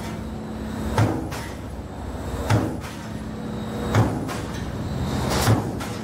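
Roll-forming line running, its press die striking about every second and a half over a steady machine hum.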